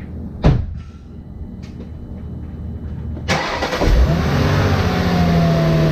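A single thump about half a second in, then the 2017 Audi A6's supercharged 3.0-litre V6 starts a little past halfway, flares briefly and settles into a steady idle.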